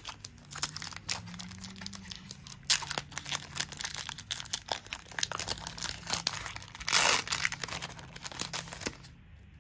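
A Magic: The Gathering booster pack's foil wrapper being torn open and crinkled in the hands: a run of crackles and clicks, with a louder rip about seven seconds in.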